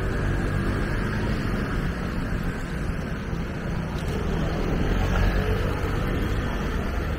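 Street traffic: a steady rumble of passing vehicles, a little louder about five seconds in.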